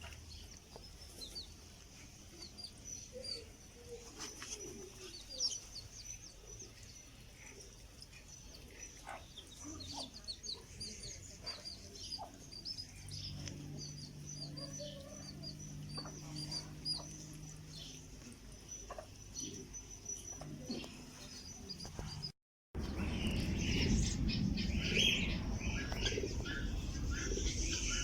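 Many small birds chirping, a dense scatter of short high chirps. About 22 seconds in there is an abrupt cut, and after it the bird sounds are louder and closer, with lower calls mixed in.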